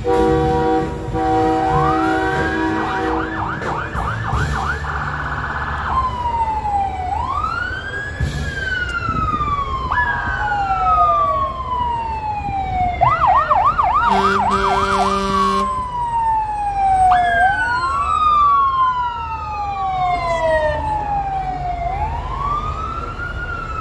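Emergency vehicle sirens sounding in turn: slow rising and falling wails, broken twice by a fast yelp, with a steady horn blast at the start and again about 14 seconds in. Near the end two wails overlap.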